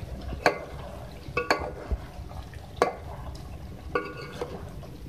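A metal spoon stirring chicken and potatoes in a metal cooking pot, knocking against the side of the pot four times with a short metallic ring, over a low steady rumble.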